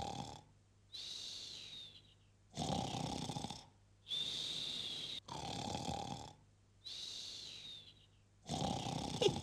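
Cartoon hare snoring in a steady cycle: a low snore on the in-breath, then a high whistle on the out-breath that dips in pitch as it fades, repeated about three times.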